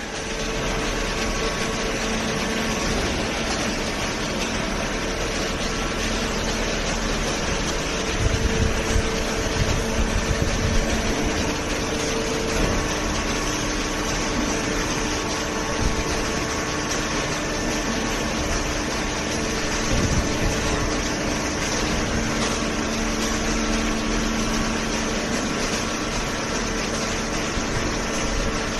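Hydraulic auto-tie baler running while baling cardboard: a steady mechanical hum with a few held tones over a broad hiss. A few dull low knocks come about eight to eleven seconds in and again near twenty seconds.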